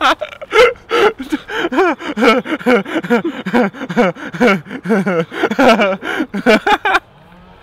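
A young man laughing hysterically: a loud run of quick, gasping laughs, about three or four a second, that breaks off suddenly about seven seconds in.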